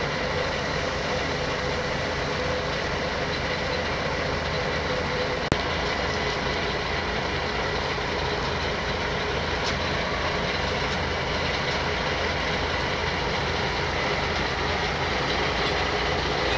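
Heavy diesel engines running steadily at low revs. A single sharp click comes about five and a half seconds in.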